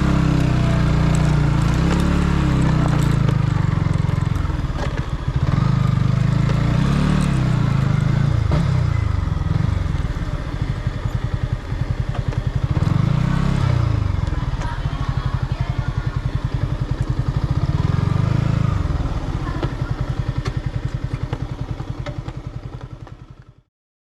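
Yamaha MT-15's single-cylinder engine on its stock exhaust, riding under way with the revs rising and falling several times. The sound fades out near the end.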